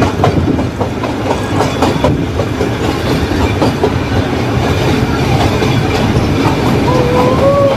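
Nilgiri Mountain Railway train running along the track: a steady rumble and rattle, with the wheels clicking over rail joints, the clicks thickest in the first few seconds.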